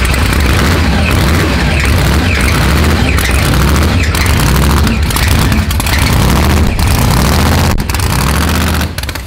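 A big supercharged 6.0-litre V8 running loud and rough after cranking back up, a deep rumble broken by irregular sharp pops; it is an engine that has just lost its oil pressure and that the crew count as finished.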